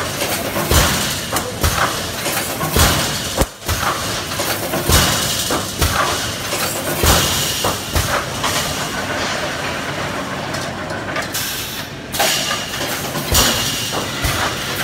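Pneumatic wire-mesh welding machine cycling: repeated bursts of compressed-air hiss about a second long, each with a short knock, every couple of seconds, with a lull midway.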